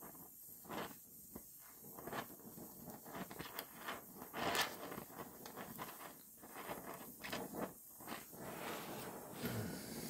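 Gas welding torch hissing against a steel car body panel, with irregular crackles and snaps from the molten metal and flying sparks; the loudest snap comes about four and a half seconds in.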